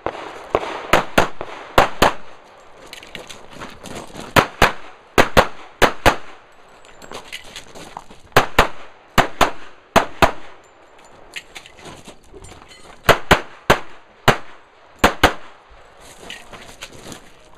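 Handgun shots fired in quick pairs, double taps on each target, with short pauses as the shooter moves between target arrays. The firing thins out near the end.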